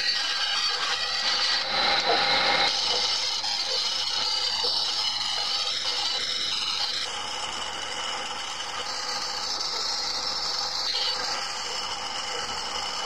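Wood lathe running while a hand-held turning tool cuts a long round wooden blank: a steady scraping hiss of the tool on the spinning wood. The cut is heavier and louder for about a second, around two seconds in.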